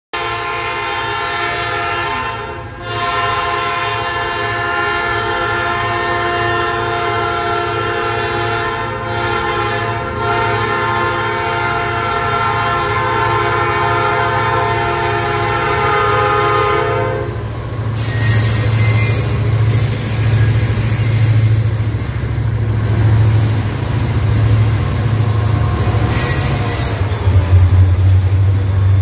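Diesel locomotive horn on a Meridian & Bigbee GP40-3 sounding the grade-crossing signal: long, long, short, long. The last blast is held until about 17 seconds in. After that, the diesel engines of the passing locomotives rumble low as the train rolls over the crossing, and the rumble swells near the end as another unit goes by.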